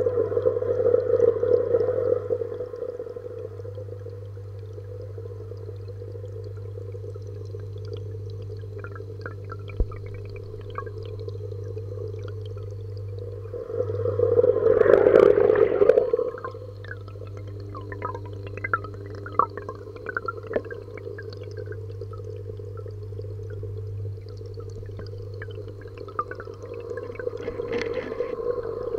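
Muffled underwater sound from a camera submerged in a small fish pond: a steady low hum, louder swishing of water as the camera moves for the first couple of seconds and again about halfway through, and scattered faint clicks in between.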